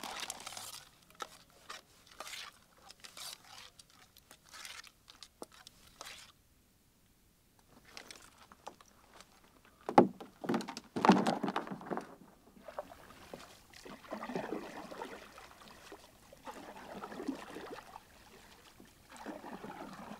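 Canoe paddle strokes: water swishes and sloshes about every two and a half seconds, starting with a sharp knock about ten seconds in. Before that, a run of small clicks and clatter, then a brief near-silence.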